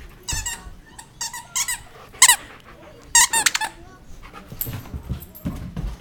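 A squeaky toy bird chewed by a black Labrador, squeaking in four quick bursts of high, wavering squeals over the first four seconds, followed by softer knocks and rustling as she plays.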